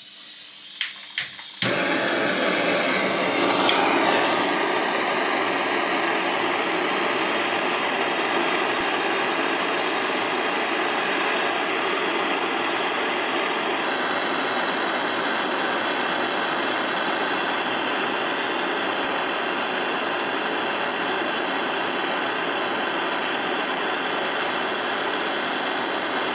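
A few sharp clicks of a propane torch igniter about a second in, then the torch lights and burns with a steady hiss, heating a brass washer on a glue chuck to soften the cyanoacrylate glue and release the part.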